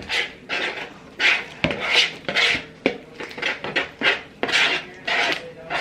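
Slime being stirred in a bowl: repeated short scraping strokes, about two or three a second.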